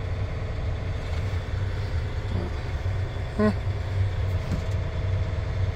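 Diesel engine of a dump truck idling steadily with a low hum.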